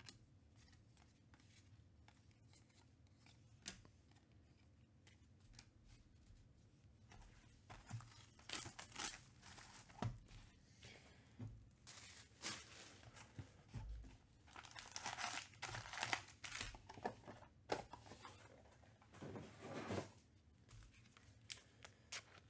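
Trading card pack wrappers from 2021 Panini Contenders Baseball being torn open and crinkled in several bursts from about eight seconds in until near the end, after a single faint click about four seconds in.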